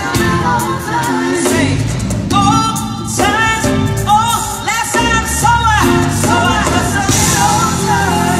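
Loud music: a song with a singing voice over a steady band accompaniment.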